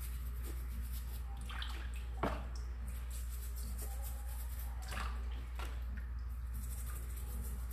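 Quartz crystal being rinsed by hand in a plastic tub of muddy water: a few short splashes and drips as it is swished about, over a steady low hum.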